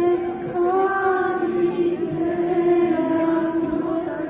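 Live concert music, amplified in a hall: a singer holds one long, steady note.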